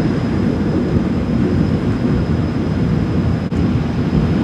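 Steady low rumbling noise with a faint high whine over it, and a brief dropout about three and a half seconds in.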